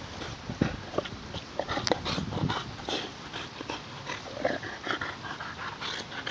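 Boxer dog gnawing and tugging at a knobbly rubber bicycle tyre right by the microphone: a dense run of irregular clicks and scrapes of teeth on rubber, mixed with the dog's breathing.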